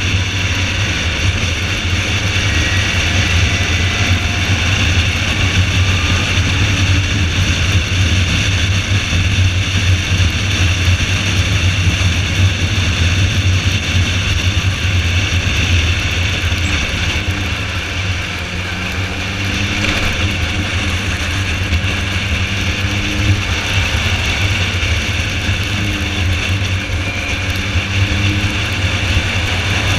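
Car driven at speed on a race circuit: a steady engine drone under road and wind noise, easing briefly about eighteen seconds in.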